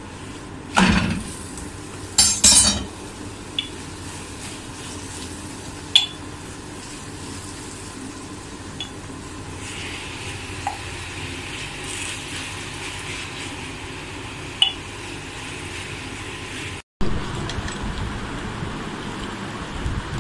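Aloo paratha frying on a griddle: a steady faint sizzle under sharp clinks and scrapes of a spatula against the pan, the loudest about a second in and twice more around two and a half seconds in. After a brief dropout near the end, a steadier background noise.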